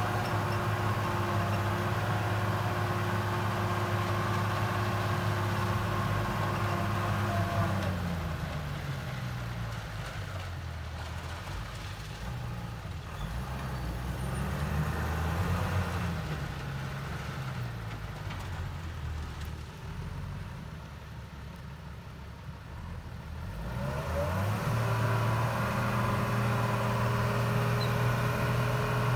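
Tata 1612 4x4 truck's diesel engine revving hard as the truck drives through a river. The revs hold high, drop about eight seconds in, rise and fall for several seconds, then climb back up about 24 seconds in and hold steady.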